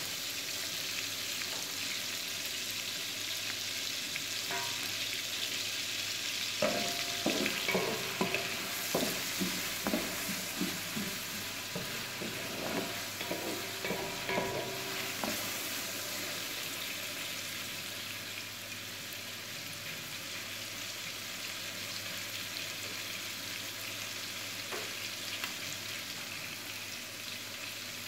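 Sliced onions and garlic sizzling steadily in butter in an aluminium pot. From about seven to fifteen seconds in, a wooden spatula stirs them, knocking against the pot so that it rings briefly with each stroke.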